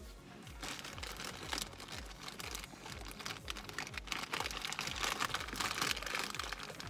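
Plastic bag crinkling and rustling as it is handled, a dense run of small crackles that grows louder in the second half.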